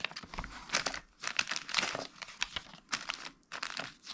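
Plastic Lego parts bags crinkling and rustling in irregular bursts as they are handled.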